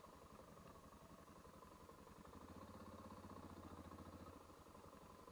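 Adventure motorbike's engine running faintly at low revs while riding along a dirt track, a steady low throb that grows a little louder for a couple of seconds midway.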